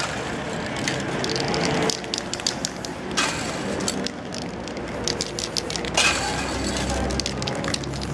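Aerosol spray-paint can hissing in two short bursts, about three seconds in and again about six seconds in, the second one louder. There is a quick run of clicks near the start.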